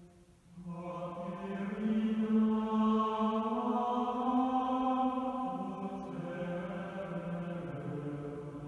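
Slow chant singing: long held notes that move up and down in steps, after a short break for breath at the start.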